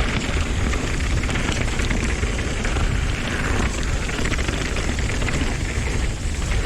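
Wind rushing over the action-camera microphone, mixed with the tyre rumble and rattle of a downhill mountain bike running fast over rough, bumpy dirt.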